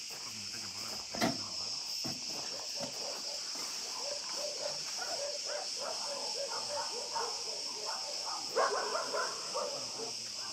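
Steady high-pitched drone of insects, with people talking faintly in the background through the middle and a short sharp sound about a second in.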